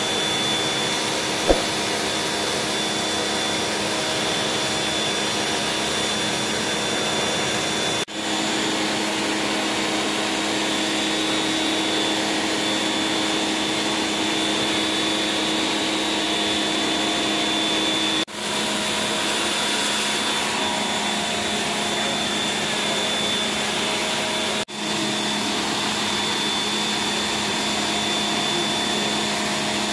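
Pressure washer running steadily, its pump humming under the hiss of the water jet blasting moss and grime off a pebble-stone floor. The sound cuts out briefly three times and comes straight back, and there is one sharp click about a second and a half in.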